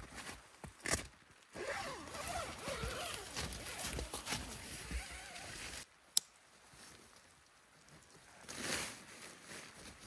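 Nylon tent fabric rustling and a zipper being worked as the inner tent is set up, with a few snowshoe steps crunching in snow at the start. There is a single sharp click about six seconds in.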